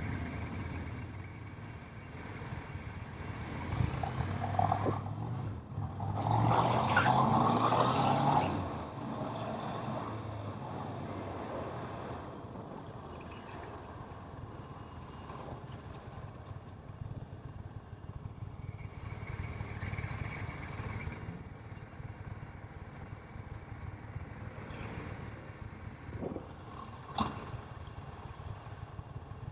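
Kawasaki motorcycle on the move, its engine running steadily with road noise, swelling louder for a couple of seconds about six seconds in.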